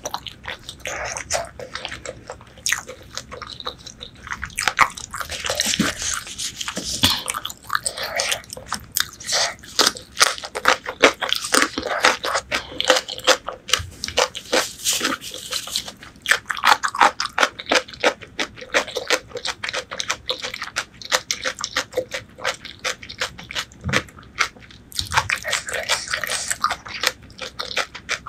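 Close-miked eating sounds: braised pork leg being bitten and chewed, with many rapid, irregular mouth clicks throughout.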